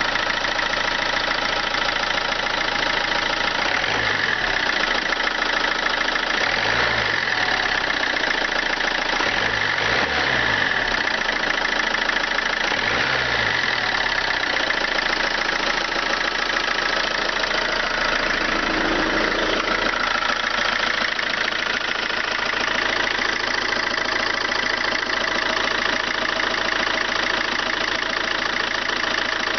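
2.0 HDi four-cylinder common-rail turbodiesel running, with a knock from its crankshaft damper pulley, which the owner takes to be failing.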